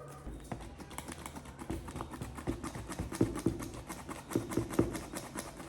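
Kitchen utensils tapping and clicking in a quick, irregular run, with a few heavier knocks in the second half.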